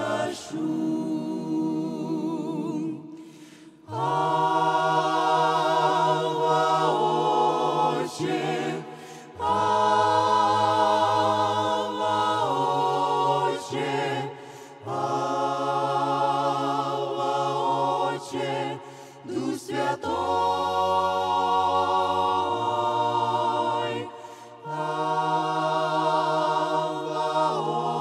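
Mixed vocal ensemble of women's and men's voices singing a worship song in harmony through microphones, holding long chords with vibrato. The phrases last a few seconds each, with short breaks between them.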